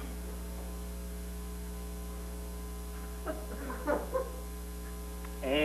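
Steady electrical mains hum on an old video recording, with a few faint brief voices about three to four seconds in and a short, louder voice sound falling in pitch just before the end.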